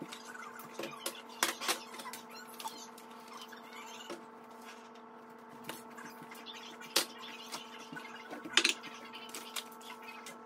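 Food packages and containers being handled and taken out of a kitchen pantry cabinet: scattered light knocks, taps and crinkles, with a few sharper knocks, two of them in the second half. A faint steady hum runs underneath.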